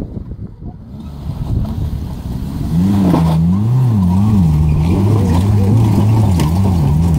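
Small four-wheel-drive jeep's engine revving under load as it climbs a steep embankment. It is quieter for the first couple of seconds, then loud from about three seconds in, its pitch rising and falling over and over as the revs surge and drop.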